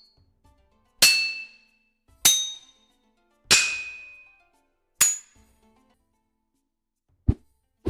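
Four heavy sword strikes on metal, each a sharp clang with a ringing tone that dies away, about a second and a half apart. Near the end come two short, low whooshes.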